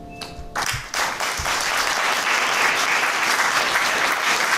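The final piano chord rings out and cuts off about half a second in. Audience applause then breaks out, swelling within a second or so into steady clapping.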